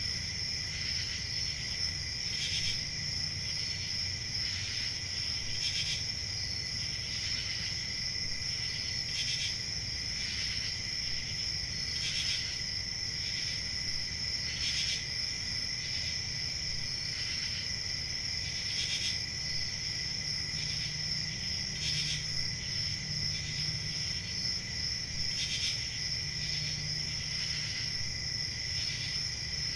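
Crickets chirping in a steady chorus, a continuous high trill with louder chirps standing out every few seconds over a low background rumble.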